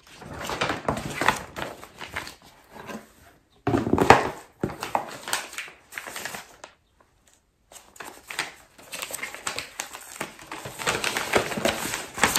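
Paper rustling and crinkling as a sheet of gift-wrap paper and other stationery are handled and taken out of a box. The crackles come irregularly, the loudest just after four seconds in, with a pause of about a second midway.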